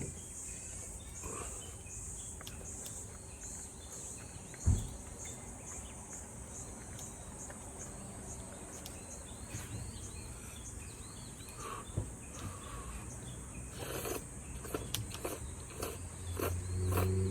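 Insects chirping in a steady rhythm, about two chirps a second, fading out partway through. Scattered clicks and a dull knock come about a third of the way in and again past the middle, and a low hum starts near the end.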